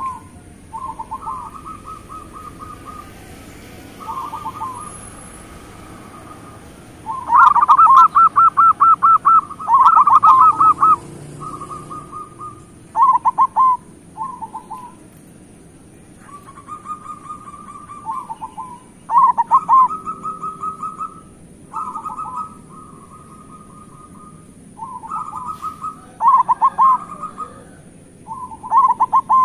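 Zebra doves (perkutut) cooing: short, rapidly trilled coo phrases repeated every second or two, loudest about a quarter to a third of the way in.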